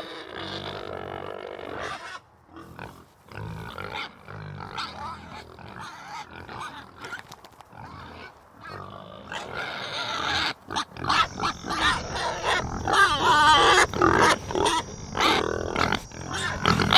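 Animal calls in a run of short segments with abrupt breaks between them, quieter in the first half and louder and denser from about two-thirds of the way in.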